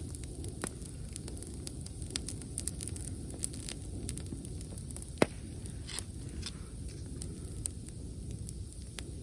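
Wood campfire burning, with irregular sharp crackles and pops over a steady low rumble of the flames; one loud pop about five seconds in.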